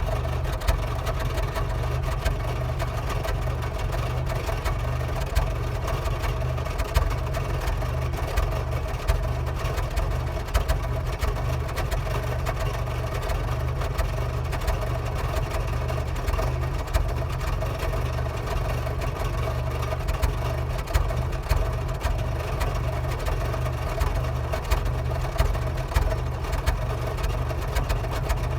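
Mitsubishi 4D56 2.5-litre four-cylinder diesel idling roughly, its steady rumble broken by irregular louder beats.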